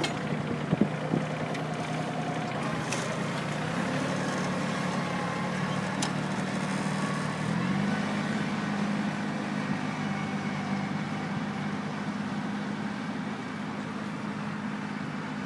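Kioti CK2810 compact tractor's three-cylinder diesel engine running steadily while ploughing; its note steps up slightly about halfway through. A couple of short knocks sound about a second in.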